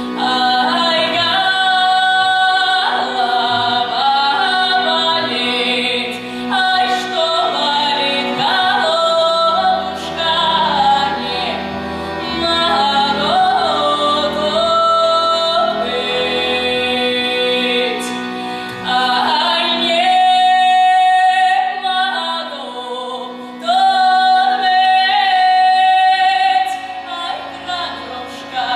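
A woman singing a Russian folk song solo with accordion and double bass accompaniment. Her melody moves freely, then she holds two long notes in the last third.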